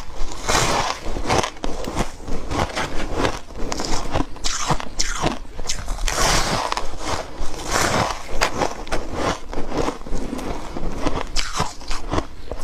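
Close-miked bites into dry, flaky frozen ice, one crisp crunching, crackling bite after another at an uneven pace.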